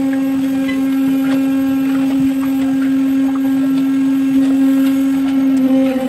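A small engine or motor running at a steady speed, a constant hum, with faint scattered scrapes and clinks of shovels and metal pans in wet concrete.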